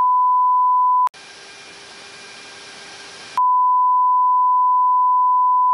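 A steady single-pitched beep tone that cuts off about a second in and comes back on about three and a half seconds in. Between the two tones the steady hum of the jet patrol aircraft's cabin is heard. The tone is the warning sound of fire-control radar being picked up by the aircraft.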